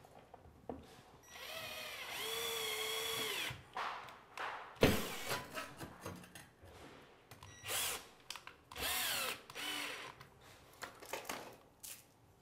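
Power drill driving screws through a metal urinal hanger bracket into a tiled wall, in several bursts. A run of about two seconds comes first, its motor whine rising and then holding. Shorter runs follow near the end, the last winding down. Clicks and one sharp knock fall between the runs.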